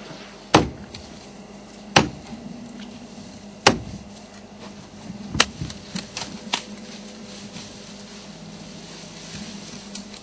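Branches cracking and snapping as elephants break through bush: four loud sharp cracks about a second and a half apart, then a few lighter snaps, over a steady low hum.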